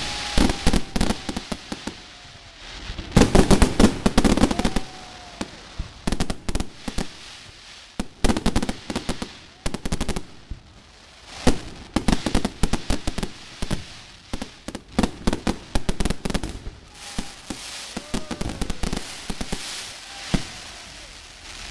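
Display fireworks going off: volleys of sharp bangs and rapid crackling from bursting shells, coming in clusters of a second or two with short lulls between, and a longer spell of continuous crackle near the end.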